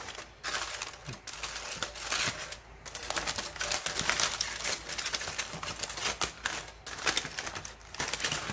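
Aluminium foil being pulled open and crumpled by hand: an irregular run of crinkles and crackles as a foil wrap is peeled back.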